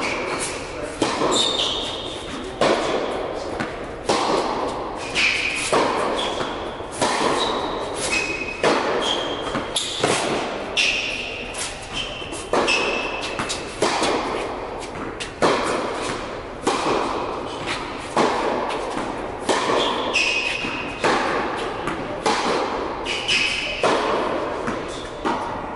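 Tennis rally in an indoor hall: rackets striking the ball and the ball bouncing on the court, a sharp hit about every second, each echoing off the hall, with short shoe squeaks on the court surface between strokes.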